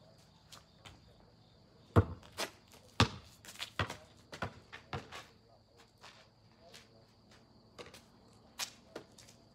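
Basketball being dribbled and shot: a series of sharp bouncing thuds, the loudest about two and three seconds in, bunched up to about five seconds, with a few more near the end. Under it runs a steady high insect drone.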